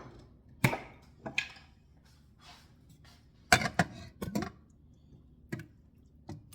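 Kitchen clatter: a series of sharp knocks and clinks from dishes and utensils being handled, with a cluster of them about three and a half seconds in.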